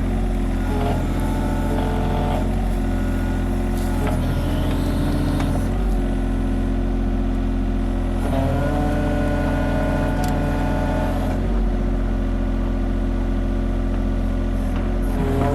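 John Deere 35G mini excavator's diesel engine running steadily under load, its note shifting every few seconds as the hydraulics take up and release work.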